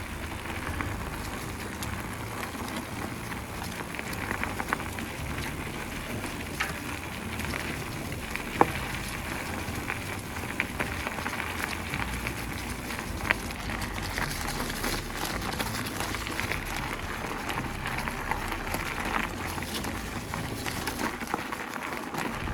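Mountain bike rolling along a dirt trail: a steady rustle of tyre and trail noise with scattered sharp clicks and rattles, one knock standing out about eight and a half seconds in.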